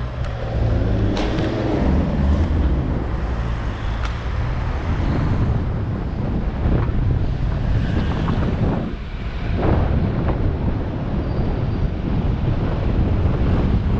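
Wind rushing over a bicycle-mounted camera's microphone while riding, mixed with the steady running of surrounding car and van traffic.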